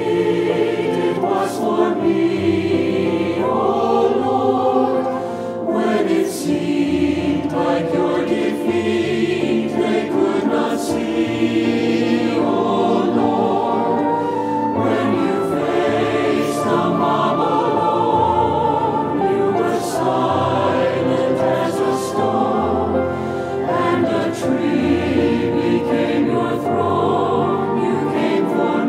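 Mixed choir of men's and women's voices singing a sacred anthem in parts, a virtual choir mixed from separate home recordings.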